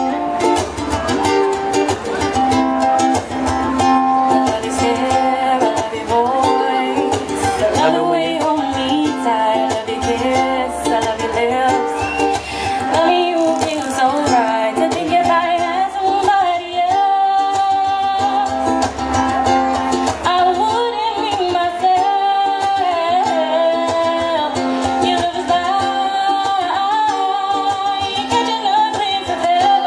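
A woman singing with her own ukulele strumming, amplified through a microphone.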